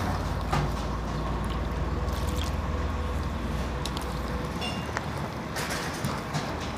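A hand squelching and slapping through thick wheat-flour and jaggery batter in a brass bowl, with soft wet clicks. A steady low rumble runs under it and fades out about two-thirds of the way through.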